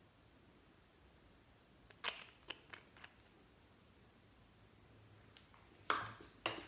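Light clicks and taps of a glass nail polish bottle and its screw cap being handled: a cluster of small clicks about two to three seconds in. Near the end come two sharper knocks about half a second apart, as a lipstick tube is set down in the glass baking dish.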